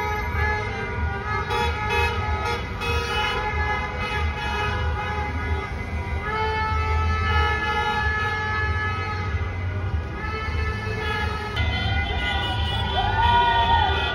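Many car horns honking together in long held blasts, street honking to celebrate a football championship. Near the end a wavering, siren-like tone rises and falls over the horns.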